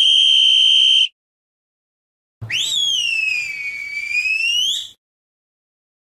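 Two whistle sound effects: first a steady, shrill whistle blast about a second long, then after a short gap a longer whistle of about two and a half seconds whose pitch jumps up, sags slowly and rises again at the end.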